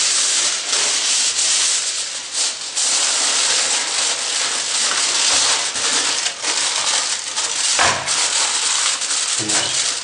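Aluminium foil crinkling and rustling continuously as it is pressed and wrapped over a container, with many small crackles and a dull knock about eight seconds in.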